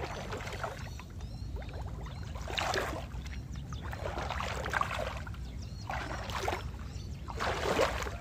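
Bare feet wading through shallow floodwater, with irregular splashing and sloshing from each step.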